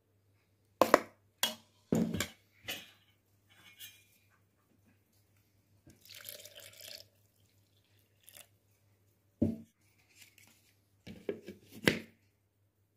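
Kitchen containers knocking and clinking as a blender jar of churned butter and a steel bowl are handled: a cluster of sharp knocks early on, a soft wet swish about six seconds in, and more knocks near the end.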